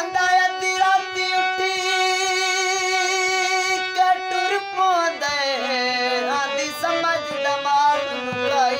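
A man singing to harmonium accompaniment. He holds one long high note with a slight vibrato for about four and a half seconds, then slides down into a wavering, ornamented melodic line over the harmonium's sustained reed tones.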